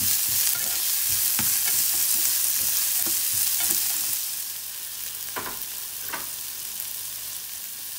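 Chopped onions, green chillies and curry leaves sizzling in hot oil in a non-stick frying pan while a spatula stirs and scrapes them against the pan. About four seconds in the stirring stops and the sizzle goes on more quietly, with two light knocks a little later.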